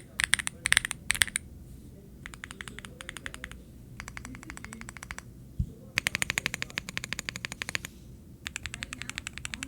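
Womier SK65 mechanical keyboard being typed on: a few louder, separate keystrokes at first, then bursts of fast typing, about ten keystrokes a second, with short pauses between them.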